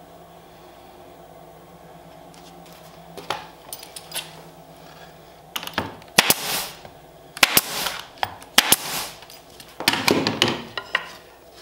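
Pneumatic nail gun firing repeatedly into wood, driving nails to fasten plywood fence strips to a routing jig. About a dozen sharp shots come singly and in quick groups, starting about three seconds in.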